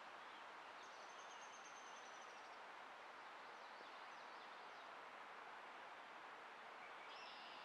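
Near silence: a faint, steady outdoor hiss of open-field ambience. About a second in, a faint high trill lasts about a second and a half, and a few faint chirps follow.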